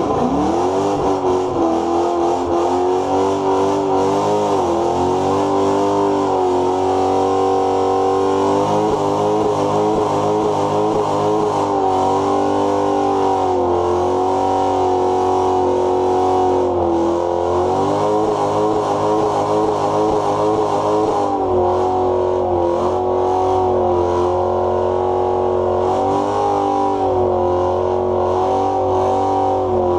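Pontiac G8 sedan's engine revved hard for a burnout, its pitch sweeping up sharply in the first second and then held high with brief dips and recoveries as the throttle is worked, the rear tyres spinning against the pavement.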